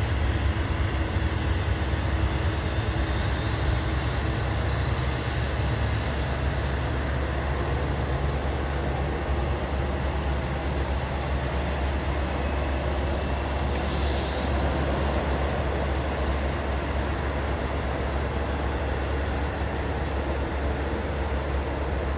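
Steady low rumble and hiss of a Boeing 737-846 airliner being pushed back by a tug. The level stays even, with no rising engine whine.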